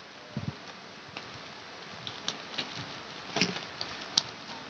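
Plastic courier pouch being handled and pulled open by hand: scattered faint crinkles and soft knocks, with one sharp click about four seconds in.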